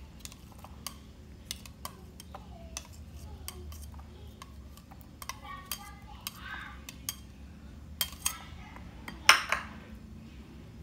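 Metal flat grater clinking and tapping against a ceramic bowl as chopped garlic is knocked off it. The irregular sharp clicks end with one louder knock a little over nine seconds in, as the grater is put down.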